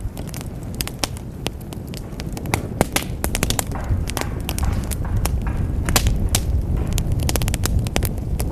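Wood fire in a fireplace crackling, with irregular sharp pops several times a second over a steady low rumble of flames that grows a little louder over the first few seconds.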